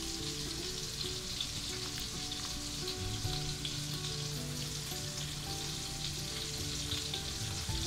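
Pieces of kingfish frying in butter and olive oil in a pan, a steady sizzle. Soft background music with a short-note melody plays underneath, joined by a held bass note from about three seconds in until near the end.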